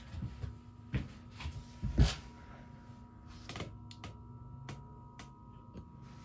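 1980s Nadair industrial ceiling fan motor running on low speed with a steady electric hum and whine, the fan just starting to turn very slowly. Scattered irregular clicks and one louder thump about two seconds in.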